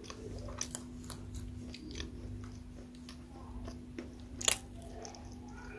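Close-up chewing of crunchy food, with a string of sharp crunches. The loudest crunch comes about four and a half seconds in. A steady low hum runs underneath.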